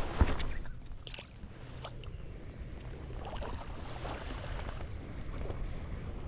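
Wind rumbling on the microphone over sea noise on the shore, with a sharp knock about a quarter second in and a few fainter clicks.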